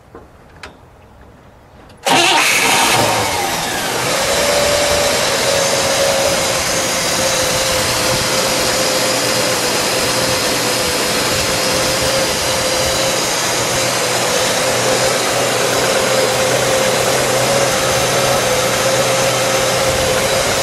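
1960 Pontiac Bonneville's 389 V8 with four-barrel carburettor starting about two seconds in, catching at once with a brief flare, then settling into a steady idle with a steady whine over it. It is the first start after the car has sat since November.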